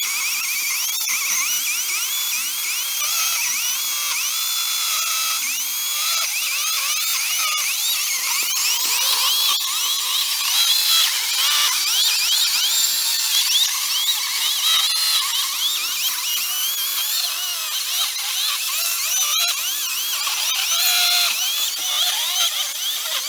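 Echo 58-volt battery chainsaw with an Oregon PowerSharp chain ripping lengthwise through a spalted yellow birch log under load. It is a steady, high-pitched electric whine whose pitch keeps dipping and climbing back as the chain bites.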